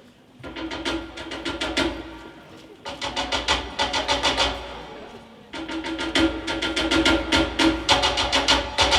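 DJ's dance track kicking in about half a second in: a fast beat of rapid clicking, wood-block-like percussion over a steady low tone. It drops back briefly around five seconds in, then comes back in.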